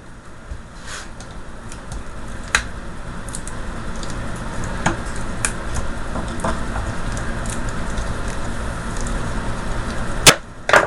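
Side cutters prying and pulling copper windings out of a starter motor armature: a scraping, rustling noise with a few sharp metallic clicks, the two loudest near the end.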